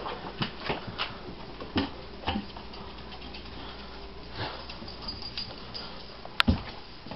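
Scattered light taps and clicks of someone moving about indoors with a handheld camera, with one sharp click about six and a half seconds in.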